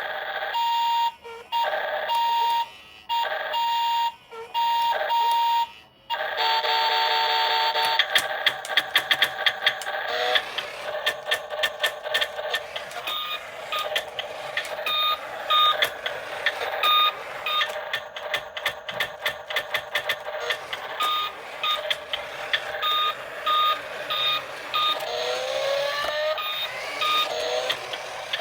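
Electronic sound effects from a battery-powered RC toy vehicle's speaker. For about six seconds it gives a string of steady beeps, then a warbling siren-like tone, then rapid chirping beeps and clicks, with a few short rising whoops near the end.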